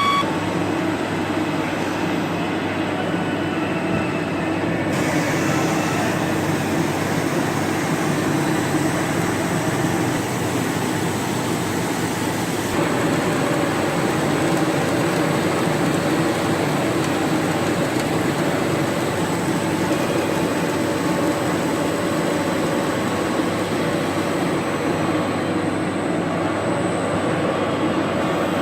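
CNC turning centre with driven tools running while it machines a cast differential case: a steady mechanical running and cutting noise. Its higher part shifts about five seconds in and again near halfway, as the cut changes.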